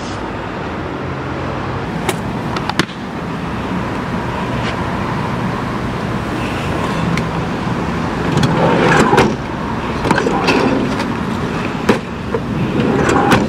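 Outdoor traffic noise, a steady rush with a faint low hum, with a few sharp clicks and knocks as laundry is unloaded from a minivan a couple of seconds in and again near the end.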